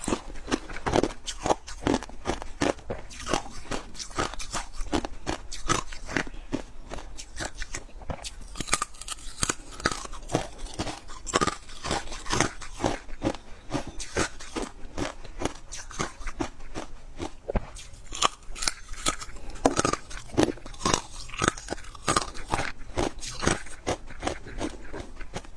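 Freezer frost being bitten and chewed close to the microphone: a continuous run of crisp, irregular crunches.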